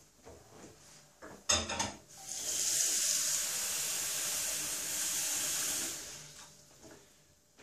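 Kitchen tap running into a small steel cooking pot in a stainless-steel sink for about four seconds, as a steady hiss that fades out near the end. A short metallic clank comes just before the water starts.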